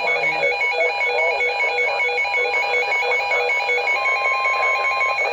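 Electronic emergency-alert alarm warbling rapidly between two high pitches, heralding a flood warning broadcast. A steady lower beep joins for about a second near the end, and the alarm cuts off as the warning begins.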